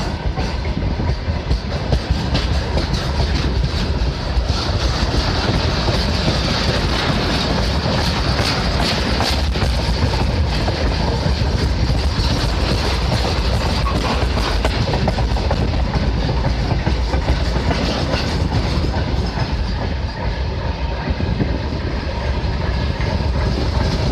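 Freight train of rail tank wagons rolling past at close range: a steady rumble of steel wheels on the rails, with repeated clicks as the wheels cross rail joints.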